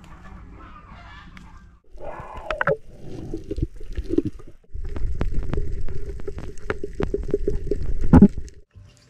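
Muffled underwater sound on a reef dive: dull water noise with many sharp clicks and crackles, and one louder crack near the end. About two seconds in there is a brief honking, clucking call.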